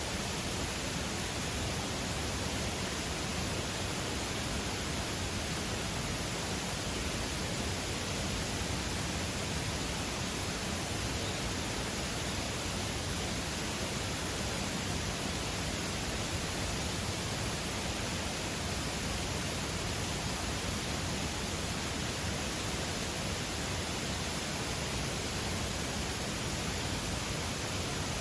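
A mountain waterfall's steady rush of falling water.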